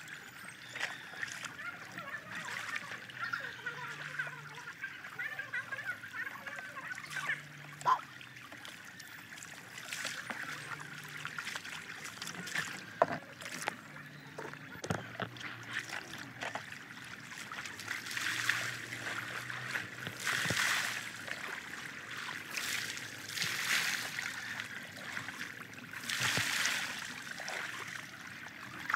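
Shallow stream water running steadily, with bouts of splashing and pouring as water is scooped and thrown over a motorbike by hand and bucket, the loudest splashes coming in the second half; a few sharp knocks along the way.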